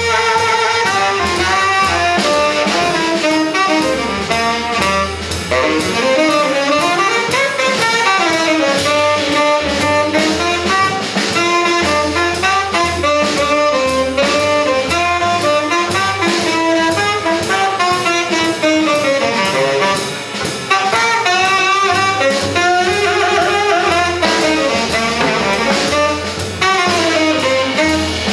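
Live jazz trio of saxophone, double bass and drum kit playing a blues: the saxophone plays a continuous melodic line over the bass and drums.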